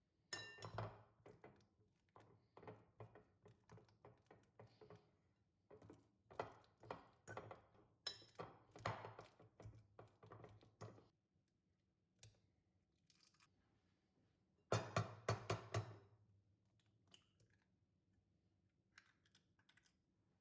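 Quiet household handling sounds: scattered light clicks and knocks, with a quick run of sharper clicks about fifteen seconds in.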